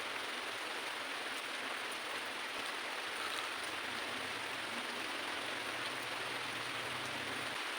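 Hot cooking oil sizzling steadily, as in deep-frying.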